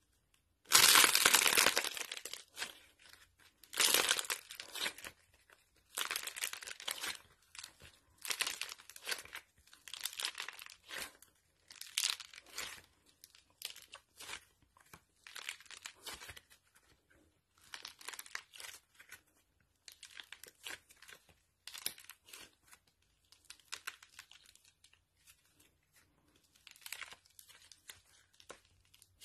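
Hands squashing and kneading soft modelling clay, the clay squishing and tearing as it is pulled apart, in bursts about every two seconds. The first burst, about a second in, is the loudest, and later ones grow fainter.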